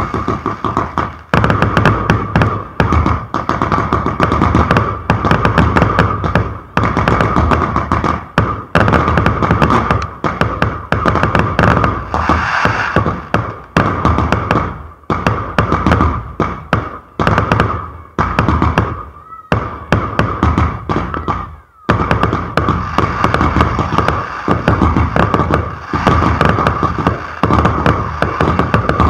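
Firework batteries firing shot after shot in rapid succession, a dense run of bangs from the aerial bursts, with a short lull about twenty seconds in before the firing picks up again.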